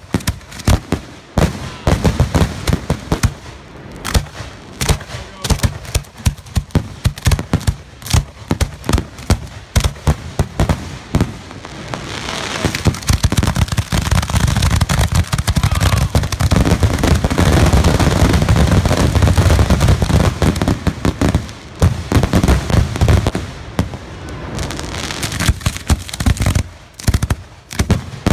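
Fireworks finale: ground-launched fireworks firing shot after shot in a rapid string of bangs. Over about ten seconds in the middle the bangs run together into a dense, continuous barrage, then they thin back out into separate bangs near the end.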